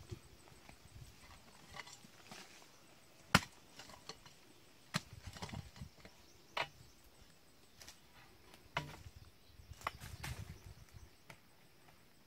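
Hand hoe chopping into soil: about five sharp strikes at uneven intervals a second or two apart, with soil scraping and shifting between them.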